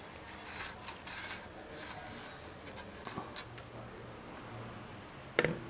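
Coil spring of a Honda SH300i front fork being drawn up out of the fork tube, its coils scraping and rattling against the metal tube with a thin high ring. A couple of sharp knocks near the end.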